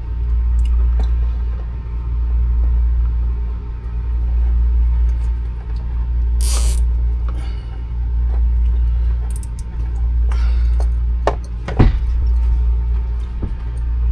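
A cable tie being zipped tight around doubled-back wiring, a short ratcheting rasp about halfway through, then a sharp click near the end. Under it a steady low hum swells and fades about every two seconds.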